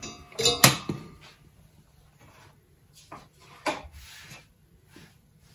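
Knocks and clatter from a soldering iron and wire being handled on a wooden board, the loudest pair of knocks just under a second in, followed by a few lighter taps and rubbing.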